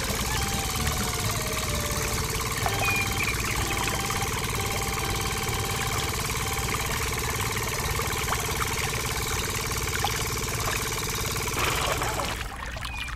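Miniature model engine running steadily with a low chug, belt-driving a toy water pump, over a small stream of water pouring into a pond. The engine sound stops about twelve seconds in.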